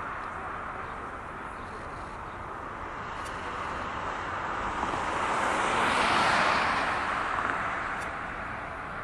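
A vehicle passes by: its noise swells to a peak about six seconds in, then fades away.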